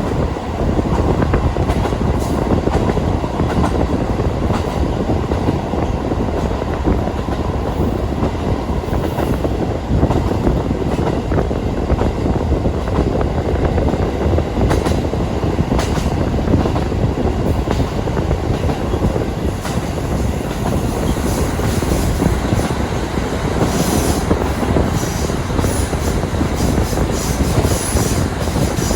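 KiHa 40 diesel railcar running along the line, heard from inside the cabin: a steady rumble of engine and wheels on rail with occasional clicks of the rail joints. Near the end, short sharp high-pitched bits join in.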